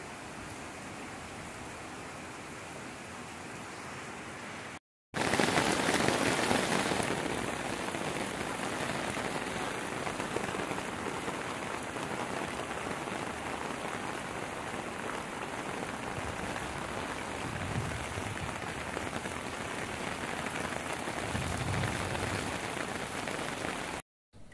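Heavy rain falling steadily on roofs and floodwater. A brief silent break comes about five seconds in, after which the rain is louder.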